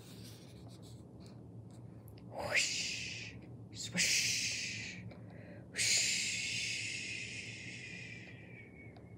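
A person's voice making three breathy wind sounds, "whoosh, swish, swish": the first sweeps upward, and the last is long and fades away slowly.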